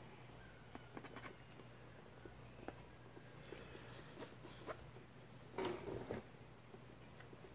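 Faint scattered clicks and scuffs of a wet pour-painted canvas being tilted and handled, with a louder brief rustle about five and a half seconds in.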